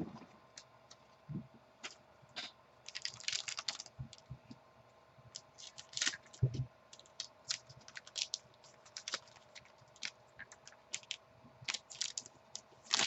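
Trading cards being handled and flipped through, giving quiet, irregular light clicks with brief sliding rustles and a few soft taps.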